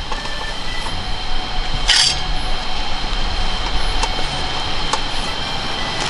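Portable gas cartridge stove being handled: a short hiss about two seconds in and a couple of single clicks a second apart, over a steady noisy background with a constant high tone.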